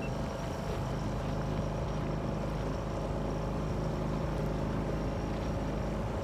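Outboard motor of a moving fishing boat running at a steady speed, under a steady rush of wind and water.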